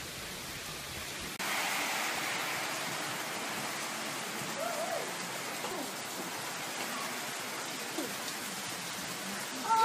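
Heavy hurricane rain pouring down, a steady hiss; about a second and a half in it jumps suddenly louder and brighter.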